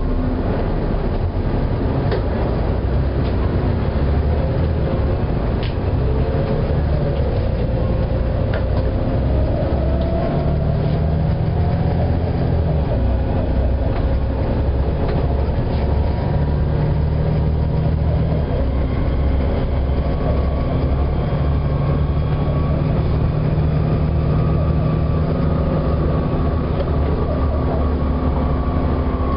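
Volvo B7TL double-decker bus running, with a strange wailing, squeaking tone that rises and falls and comes back every few seconds over the steady engine and road noise.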